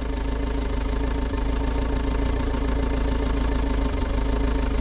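Van's diesel engine idling steadily while it runs on a lubricant sold as WD-40, fed from a canister in place of diesel fuel.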